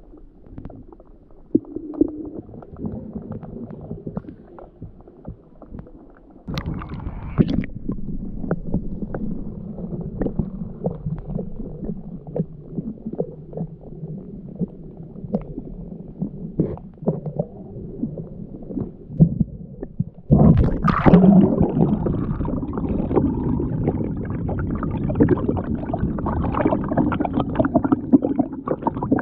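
Muffled water sound heard with the microphone under water: a low rumbling swish with many small knocks and clicks. It gets louder about six seconds in and louder again about twenty seconds in.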